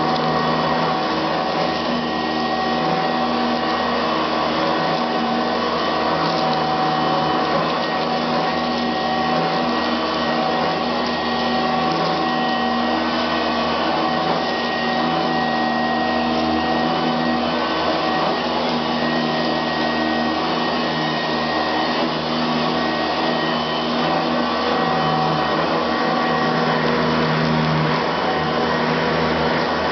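Eureka Commercial vacuum cleaner running steadily, its motor giving a continuous rush of air with several steady tones held throughout.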